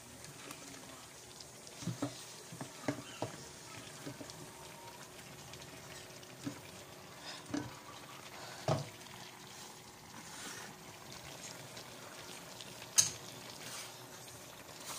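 Faint sizzle of beef cooking in its sauce in a frying pan, with scattered light knocks and taps, several between about two and nine seconds in, and one sharp click near the end.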